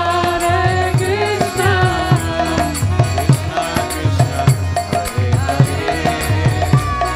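Kirtan music: a mridanga drum beats a steady rhythm under small karatala hand cymbals, with a held drone and a voice singing a chant.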